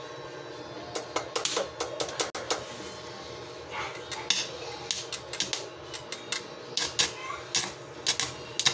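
Irregular metallic clinks and light taps, tools and small metal parts being handled and knocked together during work on a wheel hub.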